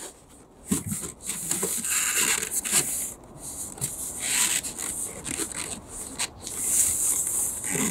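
Foam insulation board being forced by hand between wooden floor joists, rubbing and scraping against the wood and under the hands in uneven passes.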